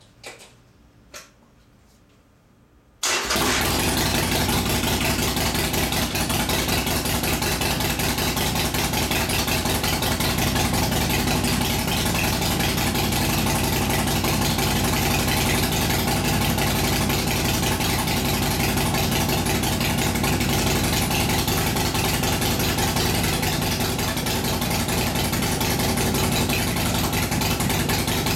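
Harley-Davidson Nightster's air-cooled 1200cc V-twin firing up about three seconds in, after a few light clicks, then idling steadily and loudly through its pipes.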